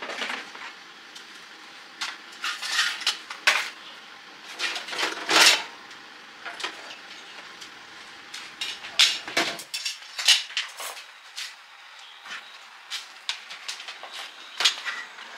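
Irregular metallic clinks and knocks, with a short ring after some of them, from tools and metal parts being handled.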